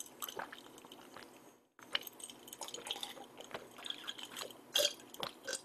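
A person gulping a drink from a glass mug close to the microphone: a run of faint swallows and small wet liquid sounds, with a few louder short ones near the end.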